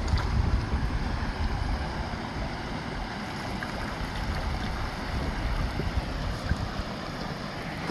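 Steady hiss of water spraying weakly from a garden spray head fed by an undersized pump, with wind rumbling on the microphone.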